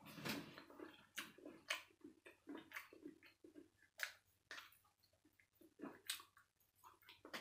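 A person eating close to the microphone: irregular wet smacks, clicks and chewing as a piece of fried meat held in the fingers is bitten and chewed.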